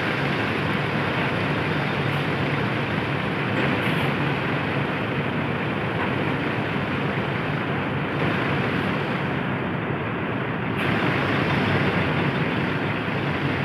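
Steady road traffic noise: vehicles running by, with a low engine hum underneath.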